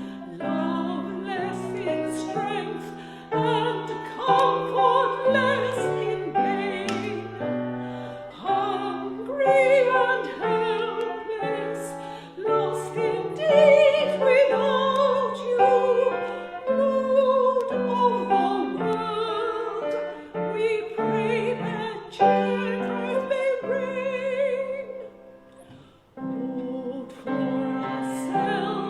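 Classical-style solo singing with a wide vibrato over piano accompaniment, with a brief pause between phrases near the end.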